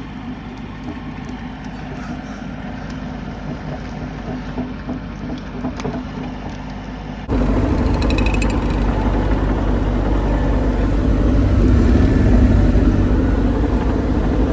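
Excavator's diesel engine running steadily, then much louder and closer after an abrupt change about halfway through.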